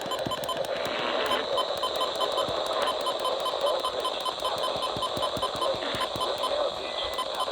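Rapid electronic beeping over radio static, the alert alarm of a weather alert receiver going off for an incoming emergency alert.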